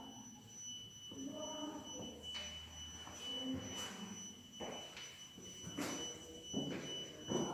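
A steady high-pitched electronic whine, with a fainter second tone above it, over distant indoor voices in the first few seconds and a few soft knocks.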